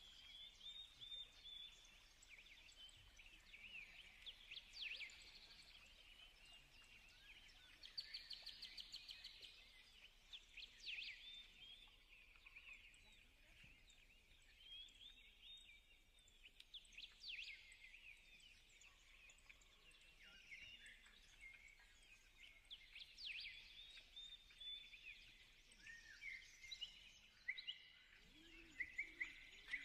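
Faint birdsong: many small birds chirping and twittering, with a quick trill about eight seconds in.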